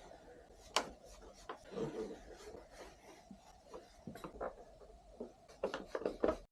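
Plastic body panels on a BMW F650GS Dakar motorcycle being handled and pushed into place: rubbing and scraping with scattered sharp clicks. One loud click comes about a second in, and a quick run of clicks comes near the end.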